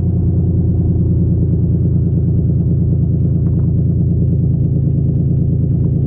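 2003 Mitsubishi Eclipse GT's V6 idling steadily through its open exhaust tip, which has its silencer insert removed and a small turbo whistle clamped in. No whistle is heard: the whistle is not working.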